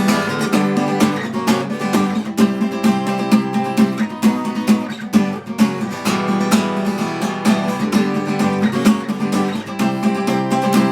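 Guitar strummed in a steady rhythm, an instrumental passage with no singing.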